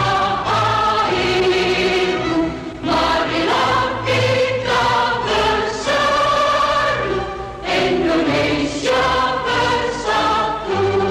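Choral music: voices singing sustained chords that change every second or two, with short breaths between phrases.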